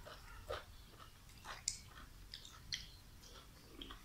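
A man chewing a mouthful of catfish eaten by hand: faint, irregular wet mouth smacks and clicks, a couple each second.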